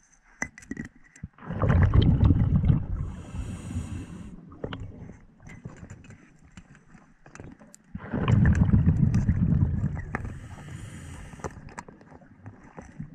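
Scuba diver breathing through a regulator underwater: two loud rumbling bursts of exhaled bubbles about six seconds apart, each followed by a softer, higher hiss, with scattered small clicks.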